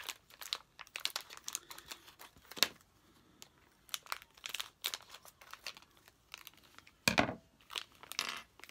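Thin plastic parts bag crinkling and rustling as it is cut open with scissors and handled, in many short irregular bursts, with one louder thump about seven seconds in.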